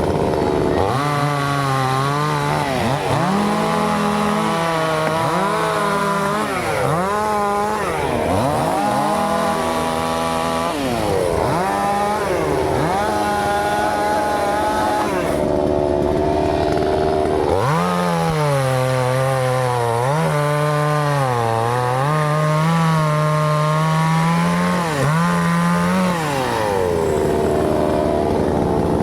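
Chainsaw running at high throttle through a long cut, its engine pitch sagging and climbing back again and again as the chain takes load in the wood.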